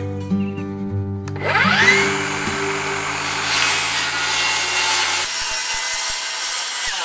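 Milwaukee Fuel circular saw spinning up with a rising whine about a second in, then cutting steadily through a ZIP System sheathing panel. Background music plays under it until about two-thirds of the way through.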